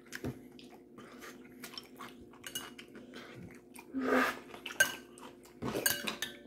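Metal spoon clinking and scraping against a ceramic soup bowl as he eats, in many short sharp clicks, with louder, longer stretches about four seconds in and again just before six seconds.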